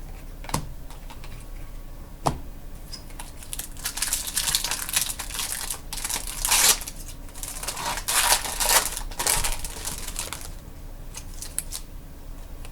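Crinkling and tearing of a trading-card pack wrapper being opened by hand, after a couple of sharp clicks near the start; the crackle runs for several seconds in the middle and stops.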